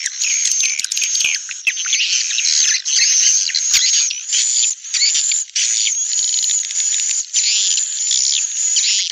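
Recorded swiftlet lure sounds: dense, continuous chirping and twittering of many swiftlets, a 'call' track and a 'roosting' track mixed in stereo, of the kind played to draw swiftlets into a nesting house.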